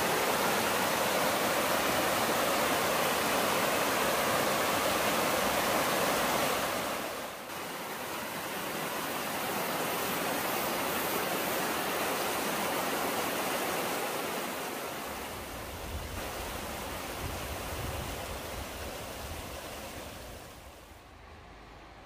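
Mountain stream rushing over a shallow rocky bed: a steady rush of water. It breaks off briefly about seven seconds in and resumes, with a low rumble under it in the later part, then fades near the end.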